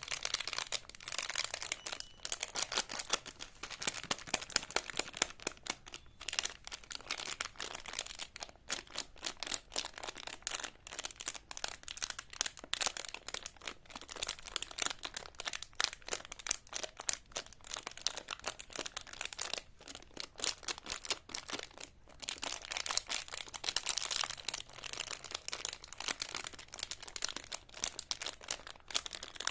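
Close-miked plastic wrapper of a jumbo lollipop being handled, crinkling continuously as a dense run of fast crackles with a few short pauses.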